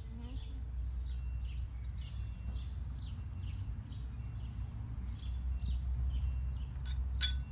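Short high animal chirps repeated about twice a second, over a steady low rumble, with one sharp click near the end.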